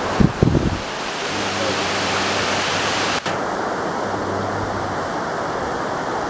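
Waterfall, a steady rush of falling water. A few low bumps come near the start, like wind or handling on the microphone, and the sound breaks off for an instant a little after three seconds in.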